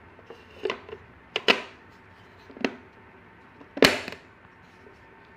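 Sharp knocks of a laser-cut wooden box's panels being handled and closed: four short knocks about a second apart, the last one the loudest.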